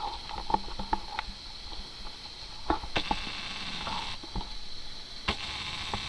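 Handling noise from the camera being held and adjusted: a few light clicks and knocks, spaced irregularly, over a steady faint hiss.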